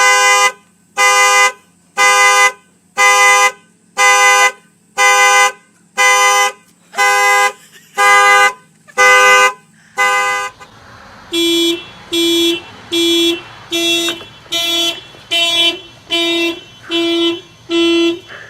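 Car alarm sounding the car's horn in a steady beat of about one honk a second. About ten seconds in, the honks turn shorter, a little quicker and lower in pitch.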